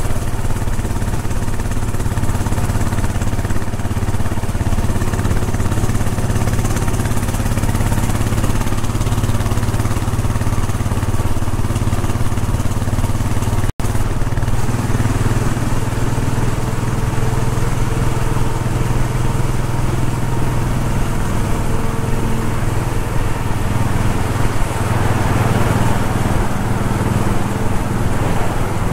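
Royal Enfield Bullet 500's single-cylinder engine running steadily under way, with a deep, even exhaust note. The sound drops out for an instant about halfway through.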